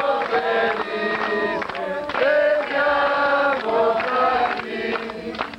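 A group of men and women singing a birthday song together in held notes, with hand-clapping; the song ends at the close.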